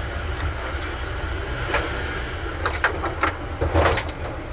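Steady low rumble of an airliner cabin before take-off, with a few sharp knocks and clunks about two seconds in and again between about three and four seconds.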